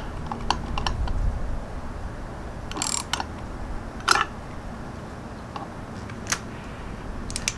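Socket ratchet clicking as the clamp bolt of a bar-end mirror is tightened down, with a short cluster of clicks about three seconds in. After that come a few scattered single clicks and knocks of metal tools and the mirror being handled.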